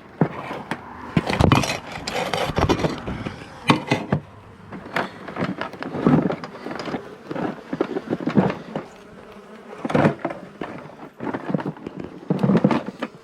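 A honeybee colony buzzing, broken by frequent irregular knocks and scrapes.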